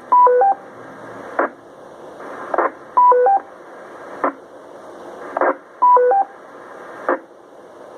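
Amateur radio repeater heard through a transceiver speaker: steady static hiss broken by short noise bursts as transmissions key up and drop. Three times, about three seconds apart, it sounds a three-note courtesy beep going high, low, then middle, which signals that the repeater is clear for the next station.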